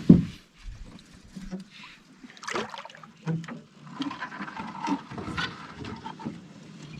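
Canoe being paddled and manoeuvred, with water sounds and scattered knocks against the hull; a loud hollow knock comes right at the start.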